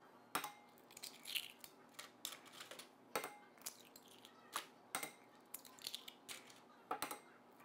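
Eggs being cracked one after another into a glass mixing bowl: a run of faint, sharp taps and shell cracks, irregularly spaced, about one or two a second.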